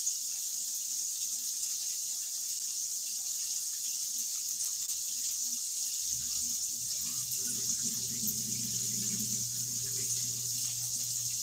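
Onion, bacon and bell pepper frying in a pan, a steady sizzle throughout. A low steady hum comes in about six seconds in.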